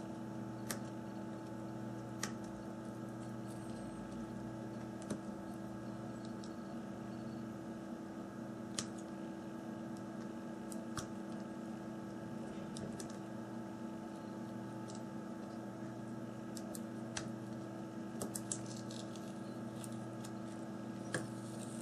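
Scattered small, sharp clicks and ticks of a repair tool working on a smartphone's internals as a label is lifted off the board, over a steady electrical hum.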